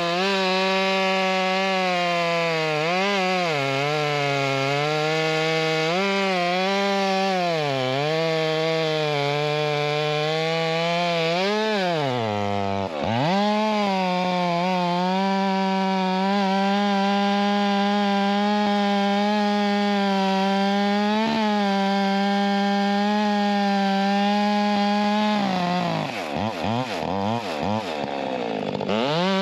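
Chainsaw running at full throttle through wood, its pitch dipping again and again as the chain loads in the cut. It drops off throttle briefly about twelve seconds in, then wavers up and down quickly near the end.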